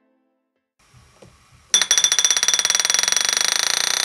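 Silence, then a sudden loud alarm-like ringing that starts a little under two seconds in and keeps going with a fast, rattling pulse.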